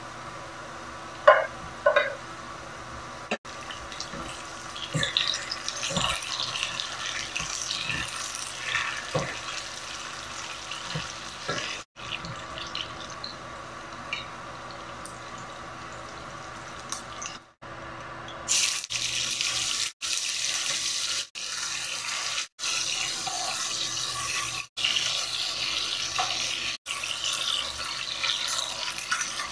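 Food sizzling in hot oil in a pan, with a few clinks early on as bell peppers are tipped from a plate onto frying vegetables and stirred. From a little past halfway, chicken pieces fry with a louder, steadier sizzle, broken several times by sudden gaps.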